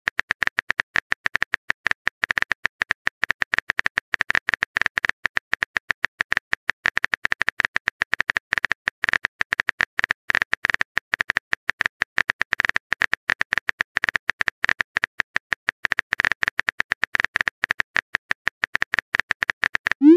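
Rapid, unbroken phone-keyboard click sound effects of a long text message being typed out.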